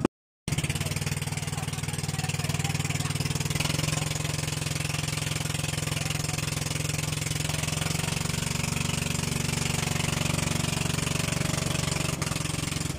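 Motorized outrigger boat engine running steadily, heard from aboard with a wash of water and wind noise. Its note shifts slightly about three and a half seconds in and again about eight seconds in.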